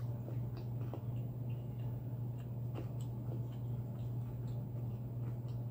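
Quiet close-miked chewing of food, with faint scattered wet clicks from the mouth, over a steady low hum.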